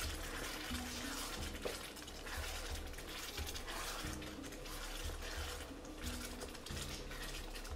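Wooden spatula stirring chicken pieces through a thick, simmering ketchup sauce in an electric wok: wet scraping and squelching with a steady low hum underneath.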